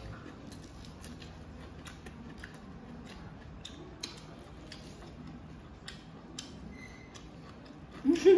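Eating sounds: chewing and crunching of raw lettuce leaves and food eaten by hand, a scatter of crisp irregular clicks and mouth smacks. A short voiced sound near the end is the loudest moment.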